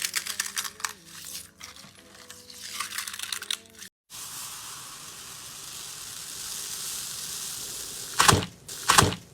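Slime being handled: about four seconds of crackling clicks over faint background music, then, after a sudden cut, a steady hiss, and two loud short squishes near the end.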